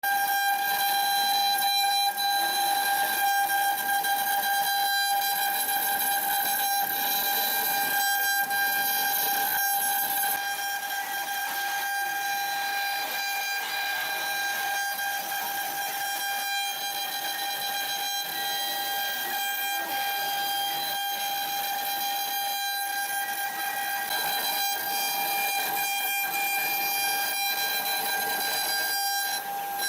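CNC machine's spindle running with a steady high-pitched whine, over a hiss of machining noise, slightly quieter after about ten seconds.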